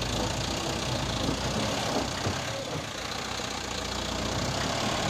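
Diesel engine of a light cargo truck running steadily at low revs as the truck crawls slowly through wet, loose sand and rock.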